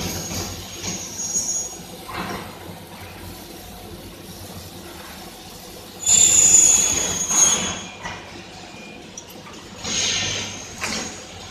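CO2 laser engraving machine cutting cardboard: a steady low hum with several bursts of high-pitched whining hiss. The loudest burst comes about six seconds in and lasts a second or two.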